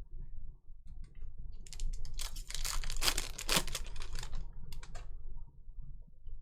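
Trading cards being handled: scattered clicks, then a dense run of rapid clicks and rustles lasting about two seconds, and a few last clicks.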